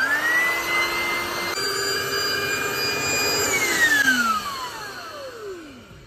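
Electric air pump inflating an inflatable car bed: its motor spins up at once to a steady whine, runs a little faster about one and a half seconds in, then is switched off about three and a half seconds in and winds down in a long falling whine.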